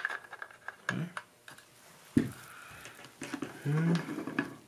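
Small metal clicks and ticks of a Mossberg 500 shotgun's bolt being worked into the front of the receiver by hand, with a sharper knock about two seconds in. A short low hum of a voice comes near the end.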